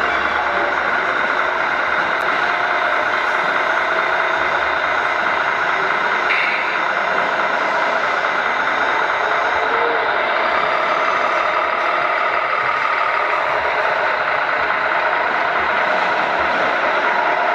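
Radio-controlled model trucks running, their electronic sound modules playing truck engine noise; a steady, loud din.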